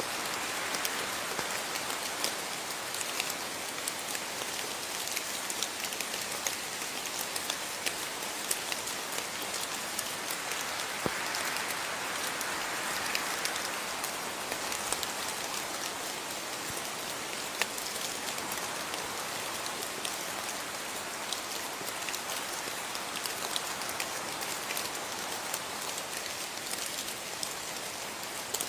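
Steady rain falling on a surface, a constant hiss dotted with many small, sharp drop ticks.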